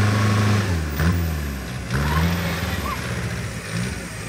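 Belarus tractor's diesel engine revving up and dropping back several times under heavy load while it strains to pull a loaded trailer out of deep mud.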